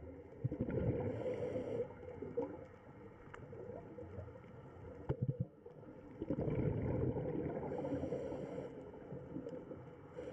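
Water noise picked up by a camera microphone underwater: a low, noisy rumble that swells twice, about a second in and again about six seconds in, with a few faint clicks between.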